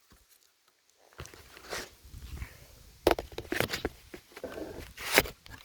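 Handling noise from a camera being picked up and propped back in place: a few irregular bumps and rustles, the loudest about three seconds in and again near the end.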